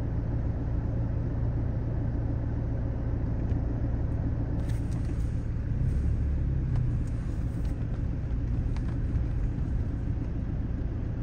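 Car engine idling, a steady low rumble heard from inside the cabin, with a few faint clicks.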